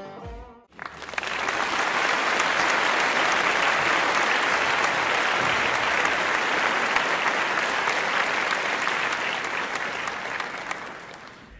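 Crowd applauding steadily, starting about a second in and fading out near the end.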